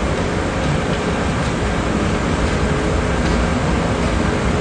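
Steady low rumble of street traffic and a large vehicle's engine running close by, with a faint steady hum through it.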